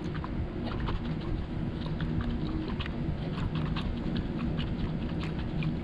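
Air bubbles gurgling up through coolant in a spill-free funnel as the cooling system is bled, heard as scattered small irregular pops over a steady low hum. The bubbles show that air is still trapped in the cooling system.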